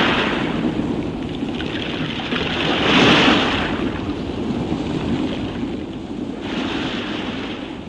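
Rushing sound of surf, like an ocean-wave sound effect at the end of a song, with no music. It swells three times and fades out near the end.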